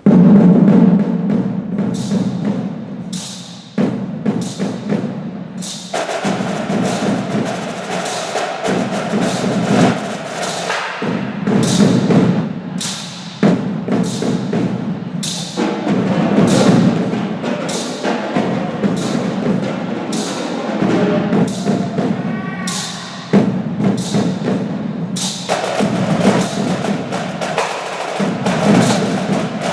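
Percussion ensemble playing a drum piece together: loud, fast drumming with many sharp strokes, starting abruptly on the first beat.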